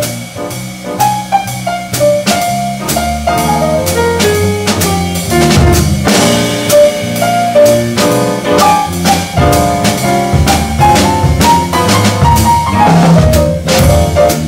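Jazz trio playing: grand piano, electric bass guitar and drum kit. A single-note melody climbs and falls over a walking bass line, while the drums keep time with steady cymbal and drum strokes.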